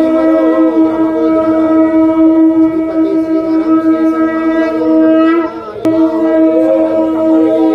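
Conch shell (shankha) blown in one long, steady note, cutting out briefly about five and a half seconds in and then sounding again.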